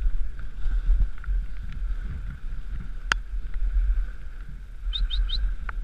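Dog sled gliding along a packed snow trail: a steady rumble and hiss of the runners and the jolting sled. A sharp click comes about three seconds in, and three quick high squeaks near the end.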